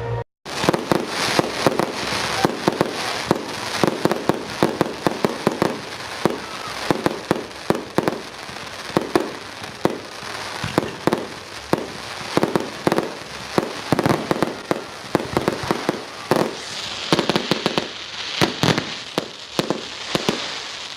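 Fireworks display: a rapid barrage of exploding shells, several bangs a second, with a hissing crackle joining in about three-quarters of the way through.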